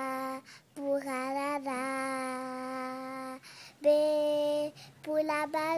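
A young girl singing solo without accompaniment, holding long steady notes in short phrases with brief breaks between them.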